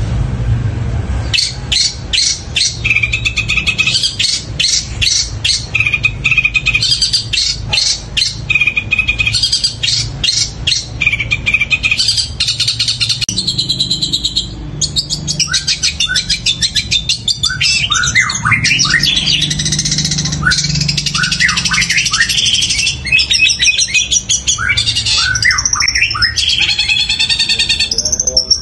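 Long-tailed shrike (cendet) singing a loud, fast, chattering song that mimics tree sparrow calls. It starts about a second in with quick repeated harsh notes, and many short rising whistles follow in the second half.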